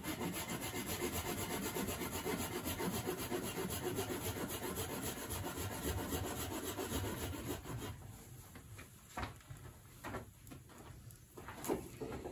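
Hand saw cutting through a piece of firewood with fast, even back-and-forth strokes that stop about eight seconds in, followed by a few separate knocks of wood.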